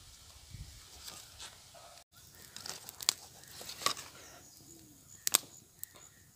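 Small red onions and chillies being handled and dropped into a coconut-shell bowl, making a few sharp light clicks and knocks, three of them spaced about a second apart in the second half.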